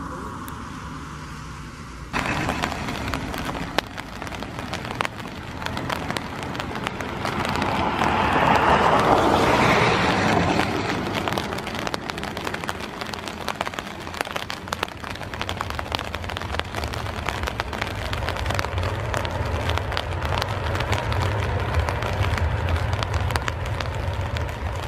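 Airbus A320-family airliner's jet engines running as it rolls out on a wet runway, with a swell of engine noise about 8 to 10 seconds in and a low rumble building later. Rain is falling, with scattered sharp drop ticks throughout.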